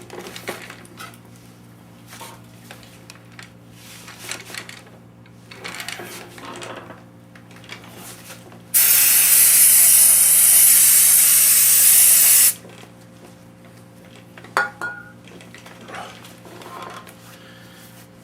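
An aerosol cleaner spraying in one steady hiss of about four seconds, cleaning a part. Light handling clatter comes before it and a few sharp clicks after, over a steady low hum.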